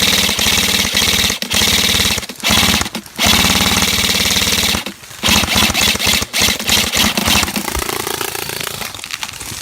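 Airsoft gun firing on full auto, close by: fast, even shots in long strings, about half a dozen, broken by brief pauses, getting quieter after about seven seconds.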